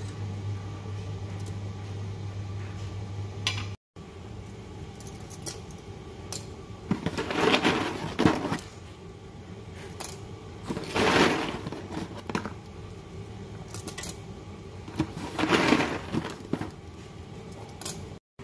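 Handfuls of dry spiral pasta rattling and dropping into a pot of soup, in three bursts a few seconds apart, over a low steady hum.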